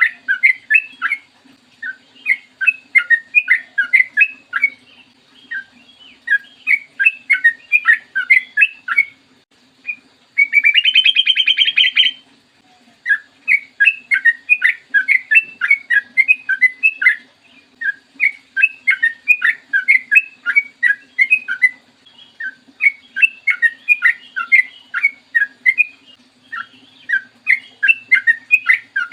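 Yellow-vented bulbul (trucukan) singing fast runs of bubbly chirped notes in phrases with short pauses between them. About ten seconds in, a louder harsh buzzing rattle lasts roughly two seconds. A faint steady low hum runs underneath.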